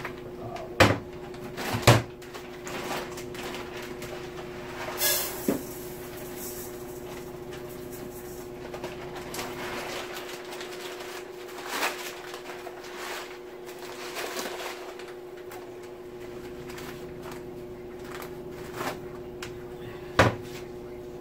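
Kitchen cupboard doors and cookware being handled: a few sharp knocks and clatters several seconds apart over a steady appliance hum, with a brief hiss about five seconds in.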